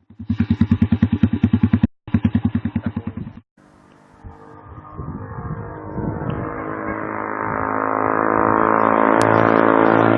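Motorcycle with a homemade TOCE exhaust: two short, abruptly cut stretches of a pulsing idle, then the engine revving up gradually, its note rising steadily in pitch and getting louder.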